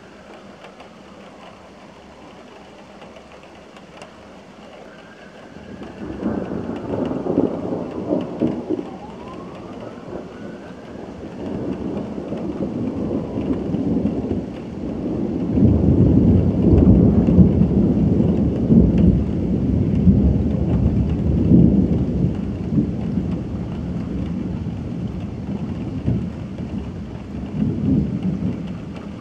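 Long rolling thunder over steady rain: a deep rumble starts about six seconds in, swells to its loudest midway and slowly dies away.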